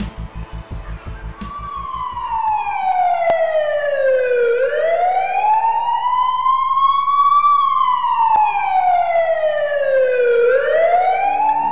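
Ambulance siren wailing in a slow rise and fall, one sweep down and up about every six seconds. It comes in a second or two in, as a pulsing music beat fades out.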